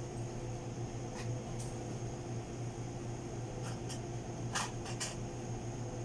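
Steady electrical hum of café equipment, like a fan or cooling unit running, with a few light clicks. The clearest click comes about four and a half seconds in.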